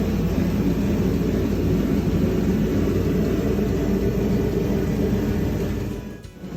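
A steady low mechanical drone with a constant hum, briefly dropping away about six seconds in.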